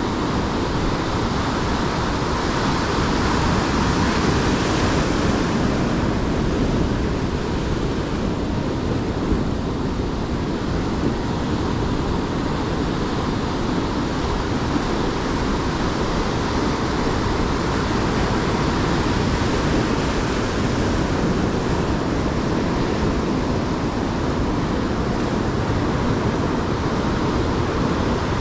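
Ocean surf breaking and washing over rocks: a steady, continuous rush of waves.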